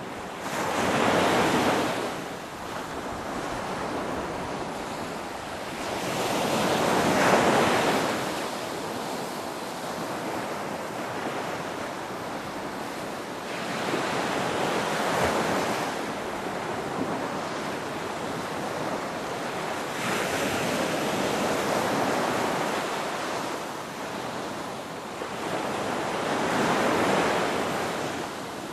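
Ocean waves breaking on the shore, a steady wash of surf with a louder swell about every six seconds, five in all.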